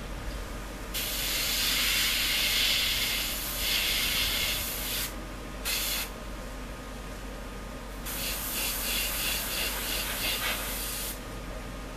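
Airbrush spraying paint onto a model masked with Patafix putty, in three hisses: a long one about a second in, a short one near six seconds, and one from about eight seconds that pulses about four times a second as the trigger is feathered.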